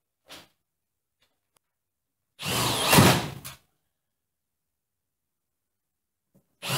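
Cordless drill boring through sheet metal in short bursts: one of about a second in the middle, another starting near the end.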